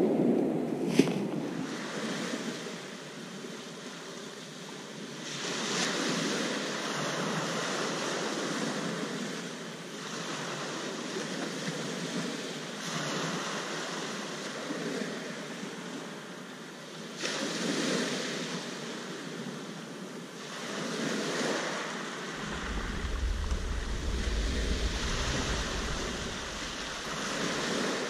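Surf breaking on a shingle beach, the wash swelling and easing every few seconds. It opens with a brief plastic-bag rustle and a sharp click about a second in, and wind rumbles on the microphone in the last few seconds.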